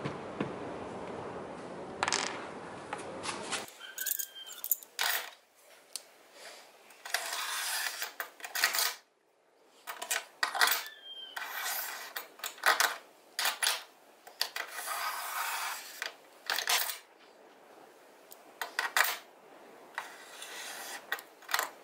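Handling noise from a small steel door hinge on paper: short metallic clinks and scraping strokes, mixed with scratchy pen strokes on the paper and a few faint squeaks. This begins after a steady noise that cuts off suddenly about three and a half seconds in.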